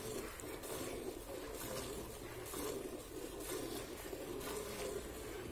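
Cow being hand-milked: jets of milk swishing into a steel pail about once a second, with a steady rushing hiss underneath.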